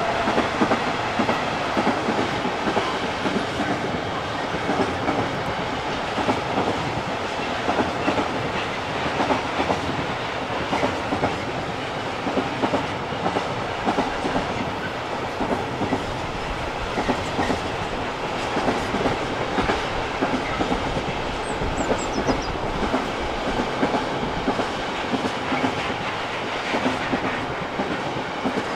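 Freight train wagons rolling past, a steady rumbling noise with the wheels clattering over rail joints in a regular rhythm, about one beat a second.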